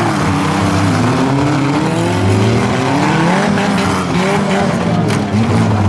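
Several small four- and six-cylinder car engines revving up and down together in a demolition derby, with tires scrubbing and a sharp impact a little past five seconds in.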